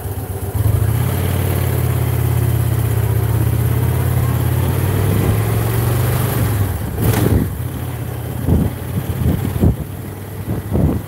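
Motorcycle engine running steadily, getting louder about half a second in as the bike pulls along, then dropping away after about six seconds. Wind then buffets the microphone in irregular gusts.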